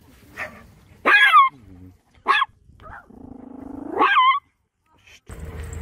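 A dog barking and growling: sharp barks at about one and two seconds in, then a low growl that rises into a third bark at about four seconds.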